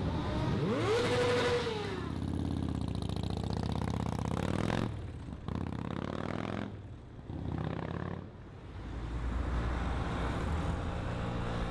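Motorcycle engines accelerating away along a street, revving up and falling in pitch as they pass, with the sound breaking off abruptly a few times as one short clip cuts to the next.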